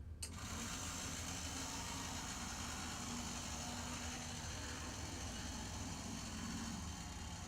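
HO-scale brass interurban coach model running on its track: the open-frame motor and spring belt drive give a steady, high-pitched whir that starts abruptly about a quarter second in.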